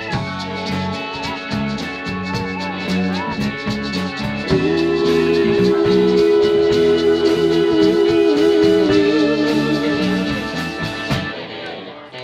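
Live soul-rock band playing an instrumental intro: drum kit keeping a steady beat under electric bass, guitar and keyboard. About four and a half seconds in, a louder sustained two-note line comes in over the band and holds, and the music thins out near the end.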